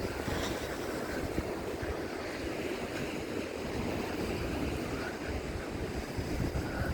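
Rough sea surging and breaking against the shore, with wind buffeting the microphone in a steady low rumble.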